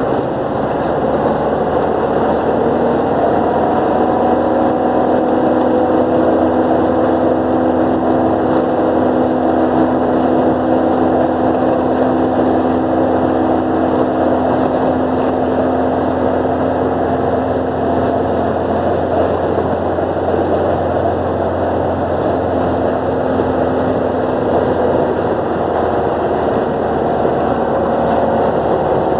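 City bus's diesel engine running steadily as the bus drives along, heard from inside the bus together with constant road noise. The engine's hum holds one pitch for long stretches and drops slightly about halfway through and again near the end.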